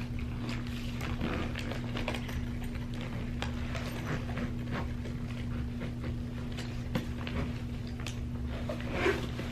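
Soft rustling and light clicks as a fabric makeup-brush bag is handled and closed, over a steady low hum. Brighter handling noise near the end is the bag's zipper starting to pull.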